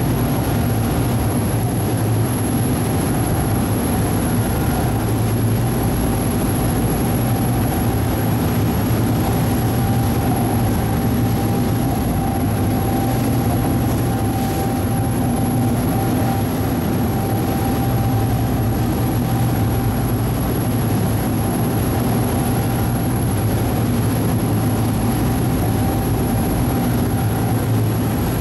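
Ferry's engine droning steadily while under way, a deep hum with a thin steady whine above it.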